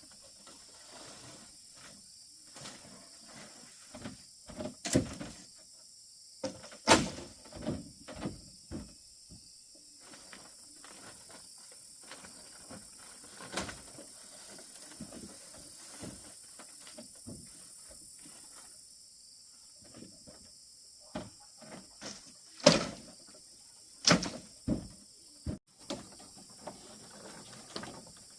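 Irregular knocks and thuds, a few of them much louder, over a steady high buzz of insects.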